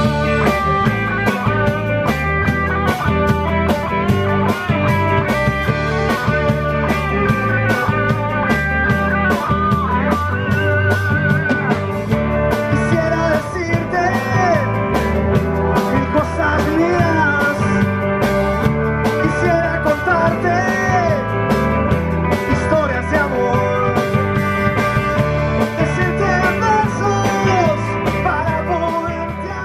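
Rock band playing electric guitars, bass and drums with a steady beat, a voice singing from about halfway through; the music fades out at the very end.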